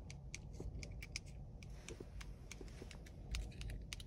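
Faint, irregular light clicks and rustling of a smart key fob being handled and its buttons pressed, over a low steady rumble.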